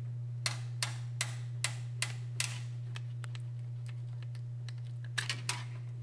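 Sharp plastic clicks of wiring harness connectors being unplugged from a door lock actuator assembly: about six clicks in the first two and a half seconds, then two more near the end, over a steady low hum.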